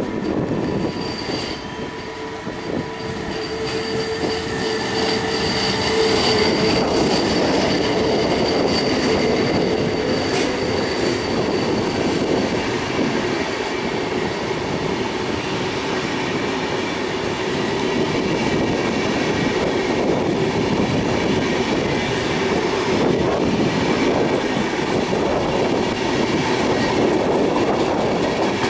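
A train rolling through the station. Its wheels squeal in steady high tones for the first ten seconds or so, the rumble growing louder a few seconds in, then the cars roll by with a steady rumble and clatter.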